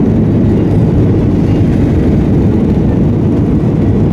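Boeing 737-800's CFM56-7B jet engines at takeoff thrust, heard from inside the cabin over the wing: a loud, steady low rumble as the airliner lifts off the runway.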